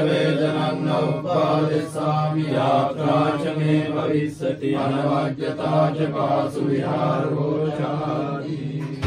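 Theravada Buddhist chant recited by several voices together in a steady, rhythmic cadence over a held low tone.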